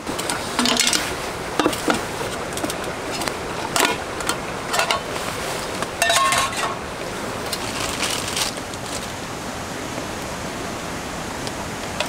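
Metal cookware clinking and knocking as a frying pan is set onto the metal grate of a portable butane camping stove: a string of separate sharp clinks spread through, over a steady rushing background.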